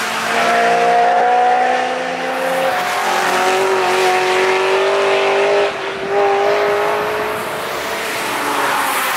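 Car engines running at high revs as cars drive hard through a bend on a racetrack, with a short dip in engine sound just before six seconds in, like a gear change or a lift of the throttle.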